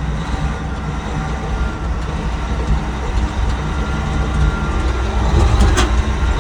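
Caterpillar D8N crawler dozer's six-cylinder diesel running under way on its tracks: a deep, steady rumble that grows louder toward the end, with a couple of sharp knocks near the end.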